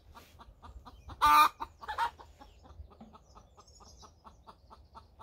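Chickens clucking in a rapid, even run of short clucks about five a second, with a loud squawk about a second in and a shorter one a moment later.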